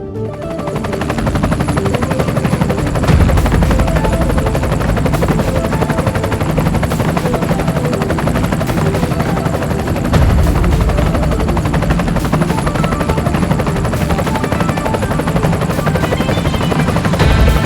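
Helicopter rotor blades beating in a fast, even chop, growing louder about three seconds in and again near ten seconds.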